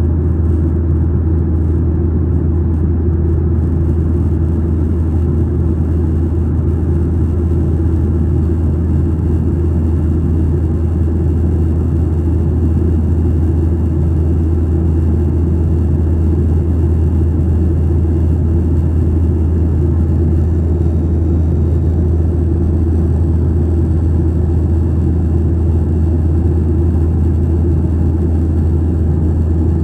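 Steady cabin noise of a Boeing 737 jetliner in flight, heard from a window seat over the wing: a deep, constant engine drone under an even rush of airflow, unchanging throughout.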